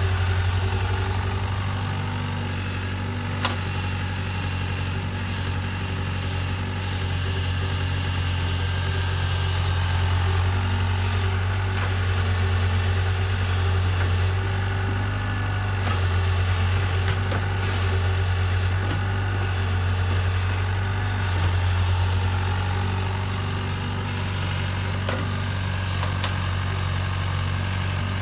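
Compact crawler excavator's diesel engine running steadily under light working load, a deep even hum that swells a little now and then as the arm and bucket dig. A single light knock about three and a half seconds in.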